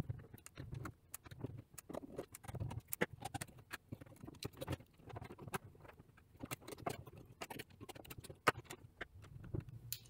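Fast-motion handling of a Dell Wyse 5060 thin client's metal case and small screws. A dense, irregular run of light clicks, taps and clatters from a screwdriver, screws and sheet-metal shield as the unit is opened and closed again.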